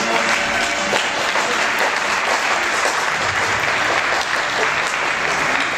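Audience applauding: a steady wash of many hands clapping as a choral piece ends.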